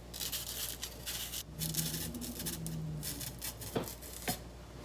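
Kitchen knife scraping and shaving the skin off a Chinese yam (nagaimo), a run of short rasping strokes, with two light clicks near the end.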